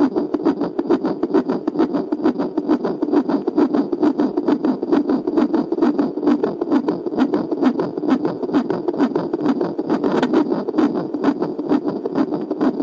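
Normal fetal heartbeat picked up by a fetal Doppler: a rapid, even, whooshing pulse that keeps a steady rhythm.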